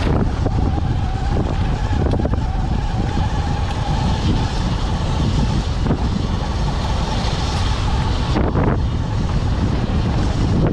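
Sur-Ron electric dirt bike riding up a rough gravel track: a steady motor whine that drops away about eight seconds in, over the rumble of tyres on stones and wind on the microphone, with scattered clicks of loose stones.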